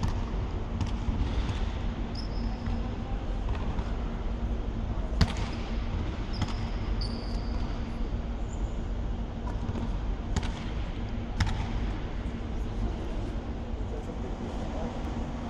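Basketballs bouncing on a wooden hall floor: a few sharp, separate thuds, the loudest about five seconds in. Short high squeaks come now and then over a steady low hum of the large hall.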